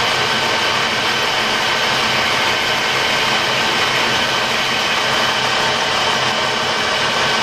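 Colchester Student metal lathe running steadily while a lathe tool rounds off the edge of a spinning copper disc.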